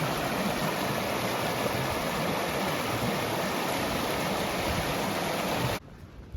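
Steady rush of flowing creek water, an even unbroken noise that cuts off abruptly near the end.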